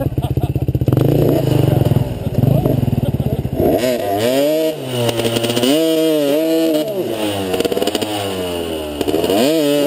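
Dirt bike engine running close by, with a rapid firing beat for the first few seconds, then revved again and again, its pitch rising and falling in long swells.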